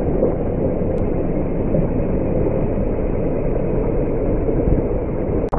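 Flash-flood water rushing down a wadi after heavy rain: a loud, steady, deep rushing noise, cut off for an instant near the end.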